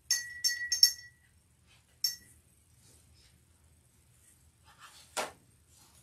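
Paintbrush clinking against the rim of a rinse jar as it is cleaned: a quick run of ringing clinks in the first second and one more about two seconds in. A single sharp knock near the end.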